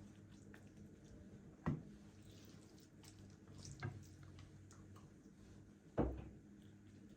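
Three short, soft knocks about two seconds apart, the last the loudest, over a faint steady low hum.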